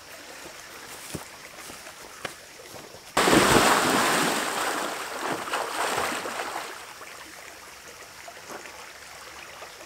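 A person jumps into a lake about three seconds in: one big splash, then the water churns and settles over the next few seconds.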